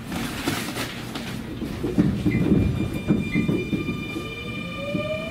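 Nankai 9000 series electric train's VVVF inverter and traction motors under power: steady high inverter tones come in about two seconds in, and near the end a tone glides upward in pitch as the train gathers speed. Underneath runs the rumble and knocking of the wheels and car body.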